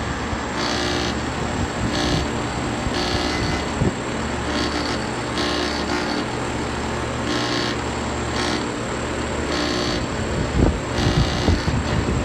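Residential air conditioner outdoor unit running: a steady hum from the compressor and fan, with a strange rattling hiss that comes and goes about once a second, which the man wonders may come from a bad electrical board. A few thuds near the end.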